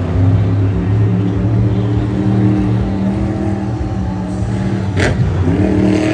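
Monster truck's supercharged V8 engine running loud and steady, with a sharp crack about five seconds in; the revs climb right after it.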